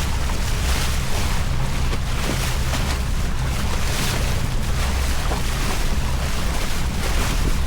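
Boat under way: a steady low drone from the outboard motors under a loud rush of wind and water.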